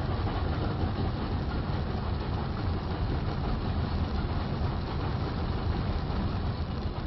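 Steam locomotive and its passenger train running fast past the listener: a steady, loud rumble of exhaust and wheels on rail.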